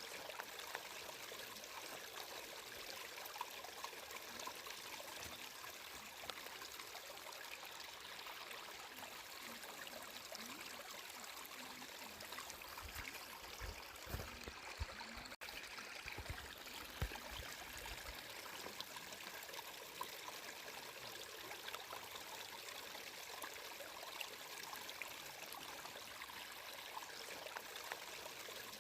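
Flowing water running steadily, with a few low bumps about halfway through and a split-second dropout among them.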